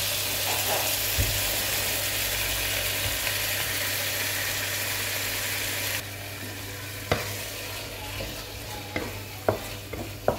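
Pineapple, lemongrass and garlic frying in a pan with canned sardines in tomato sauce just poured in: a steady sizzle that quiets abruptly about six seconds in. After that, a few sharp knocks of a utensil against the pan as the mixture is stirred.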